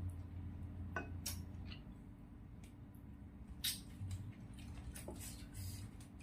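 Eating by hand: wet chewing and mouth noises over spicy chicken feet and rice, with scattered sharp clicks of fingers and food against the plate.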